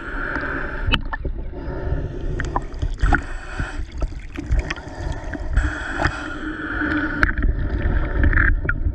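Choppy river water sloshing and gurgling around a camera held at the water's surface, with scattered small splashes.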